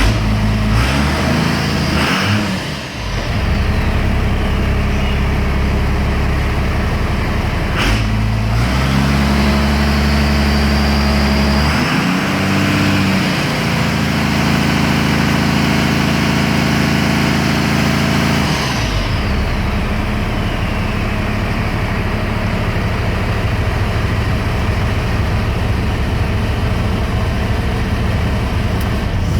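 Cummins turbo-diesel engine running. About eight seconds in it is raised to a higher speed, with a brief dip in the middle. About nineteen seconds in it comes back down to a steady idle, and a high whine rises and falls with the engine speed. A sharp click sounds about eight seconds in.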